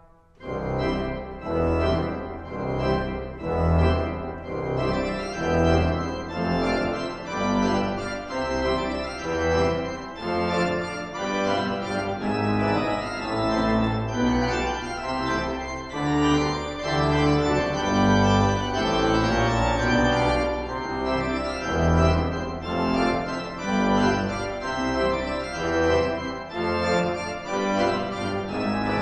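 Pipe organ playing a loud, fast piece in full chords with strong pedal bass notes. The full sound comes in about half a second in, after a quiet moment.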